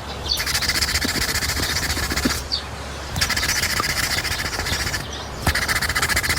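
An animal calling in three long, rapid buzzing trills, each about two seconds, with short pauses between them.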